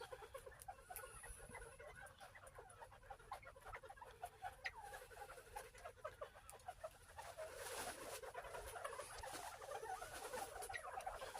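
A flock of northern bobwhite quail giving a steady chatter of soft, short chirping calls, their contented 'happy sound'. The chirping grows busier and louder about two-thirds of the way through.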